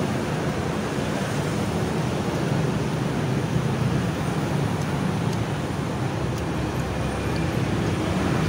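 Steady low rumble of road traffic, with no single vehicle passing distinctly.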